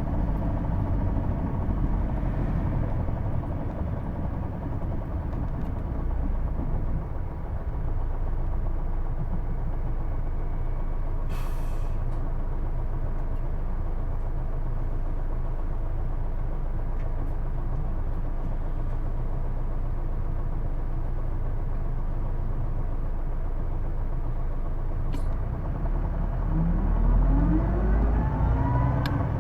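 Hino Blue Ribbon II city bus heard from inside the cabin: the diesel engine and drivetrain rumble steadily, with a short hiss of air about eleven seconds in. Near the end the bus pulls away and a whine rises in pitch, the unusual transmission whine of this bus that sounds like an automatic gearbox.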